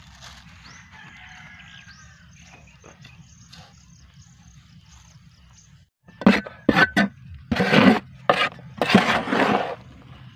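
Faint chicken and bird calls, then, about six seconds in, a run of loud scrapes as a hand trowel scoops garden soil out of a plastic basin.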